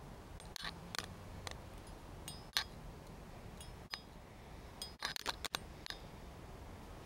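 Irregular sharp clicks and crackles close to the microphone, with a quick cluster of them about five seconds in, over a low steady hum.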